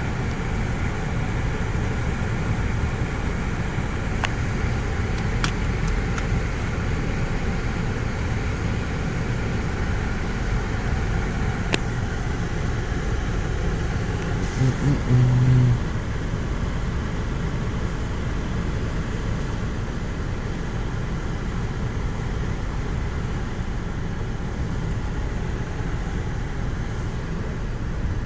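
Automatic car wash machine running with a steady low rumble. About fifteen seconds in, a brief, louder low hum lasts about a second.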